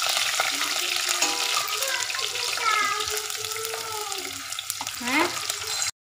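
Curry leaves and sliced shallots sizzling in hot oil in a stainless steel saucepan while a metal ladle stirs them. The steady sizzle cuts off suddenly near the end.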